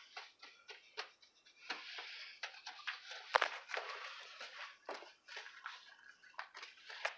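Plastic spoon scraping and tapping in a plastic mixing bowl as stiff cookie dough is stirred, with one sharper knock about three and a half seconds in.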